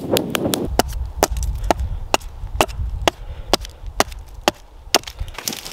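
Axe chopping wood: a steady run of sharp strikes, about two a second.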